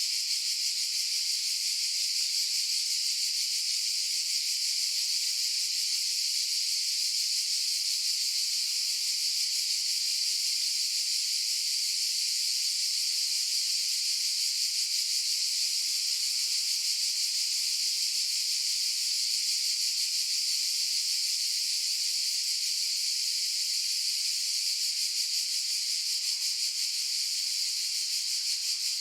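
Cicadas buzzing in a dense chorus: one steady, unbroken high-pitched drone that never pauses.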